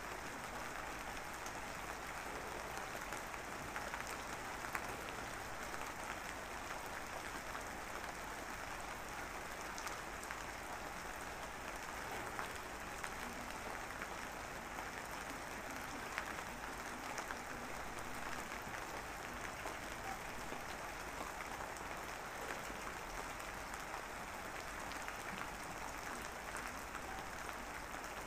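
Steady rain falling, an even hiss with scattered faint ticks of drops.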